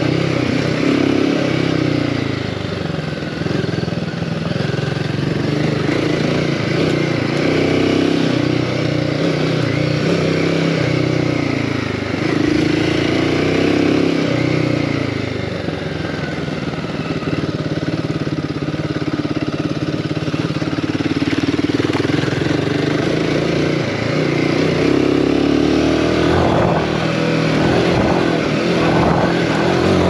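Royal Enfield Himalayan 450's single-cylinder engine running under way, its revs repeatedly rising and falling with the throttle. Some rough knocks come near the end.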